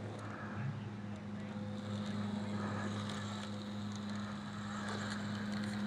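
A small electric motor running steadily with a constant hum, and a few faint light ticks.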